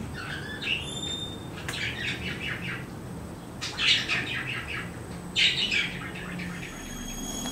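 Loop trimming tool carving facets into a clay horn: three bursts of quick scraping strokes on the clay, with short bird chirps in the background near the start.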